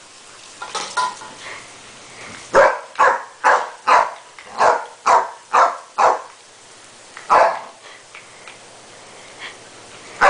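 Terrier barking at the spray of a garden hose: a quick run of about eight sharp barks, roughly two a second, starting a few seconds in, then one more bark after a short pause. A steady hiss of hose spray runs underneath.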